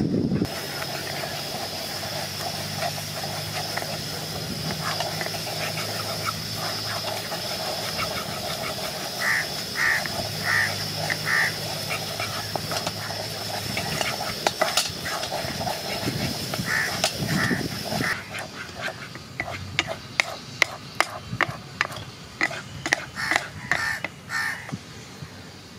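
A wooden spoon stirring and scraping thick apple jam in a nonstick pan, with sharp clicks and taps of spoon on pan in the last few seconds. A steady high hiss and animal calls sound in the background.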